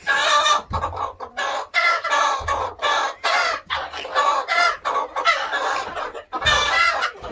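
Roosting chickens squawking and clucking loudly, call after call with barely a break, as a hand reaches in among them.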